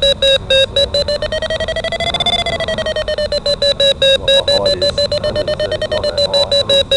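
DIY Arduino sailplane variometer beeping through a small amplified loudspeaker: a rapid string of pitched beeps whose rate and length shift while the pitch drifts gently up and down. In this rising-tone-only version the beeps signal that the glider is climbing in lift.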